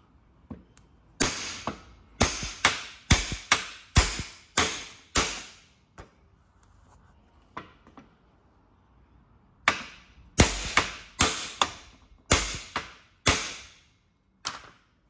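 Hammer blows on a tubular bearing installer, driving a new lower steering head bearing down onto a Honda CRF450R steering stem. Two runs of about eight sharp knocks each, roughly two a second, each with a brief ring, with a pause of about four seconds between the runs.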